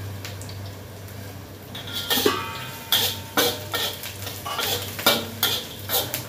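Metal spatula scraping and clanking against a wok while onions, garlic and curry leaves are stir-fried. The strokes start about two seconds in and come in quick, irregular succession.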